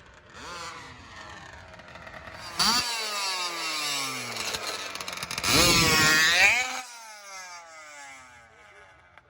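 Small two-stroke engine of a gas-powered RC drag car revving hard, its pitch repeatedly rising and falling. It jumps louder a few seconds in, is loudest a little past the middle, then drops in pitch and fades. The car is short of traction on this surface.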